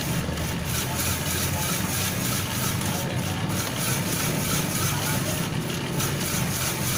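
A machine running steadily: an even low rumble with hiss above it.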